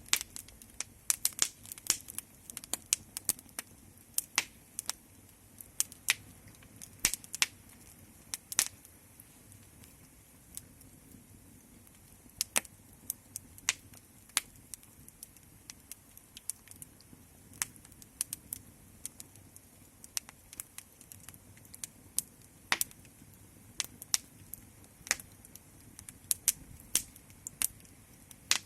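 Wood fire crackling: irregular sharp snaps and pops, sometimes several in quick succession, over a faint steady background.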